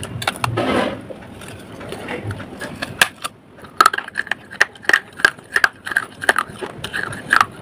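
Fired clay pot (matka) being bitten and chewed. A denser grinding crunch comes in the first second, then a quick run of sharp crunches starts about four seconds in as the broken clay is chewed.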